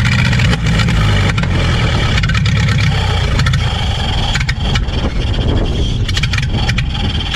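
An engine running steadily with a heavy low rumble, with scattered sharp clicks and knocks over it.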